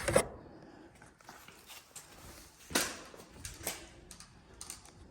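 Small metal hardware being handled: a few separate clicks and knocks, the loudest about three seconds in, as screws and fittings for the heat pump are sorted and put in place.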